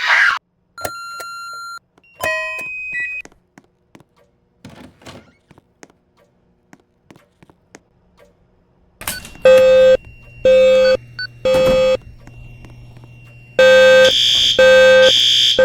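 A few electronic beeps early on give way, about nine seconds in, to the fire alarm system's speakers sounding a buzzy horn tone in the temporal-three evacuation pattern: three pulses, a pause, then three more.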